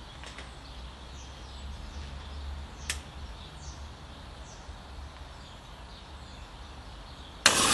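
Steel coil spring held stretched from a bench vise with pliers, over a low steady hum, with a single sharp click about three seconds in. Near the end the spring jumps out of the pliers and snaps back with a sudden loud bang and a ringing twang that falls in pitch.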